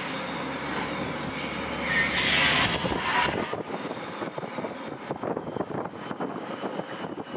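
X'trapolis electric suburban train arriving and braking into a platform. A loud hiss from the wheels and brakes lasts about a second and a half, starting about two seconds in. After it comes a quieter rumble with rapid clicks as the train slows.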